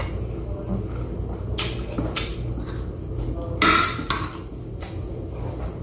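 Spoon and fork clinking and scraping against a plate while eating, about six short clinks with a louder, longer scrape about two-thirds of the way through, over a steady low hum.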